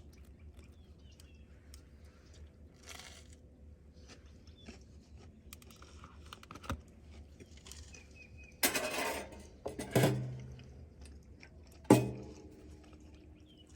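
Low steady hum with scattered small clicks and rattles of handling. Three short, louder noises come in the second half.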